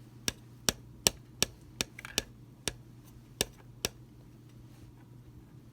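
About ten sharp clicks or taps at an uneven pace over roughly four seconds, then they stop, over a low steady hum.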